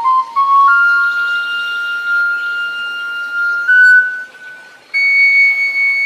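Sundanese suling (bamboo flute) music playing slow, long-held notes that step and slide from one pitch to the next, with a brief quiet gap about four seconds in.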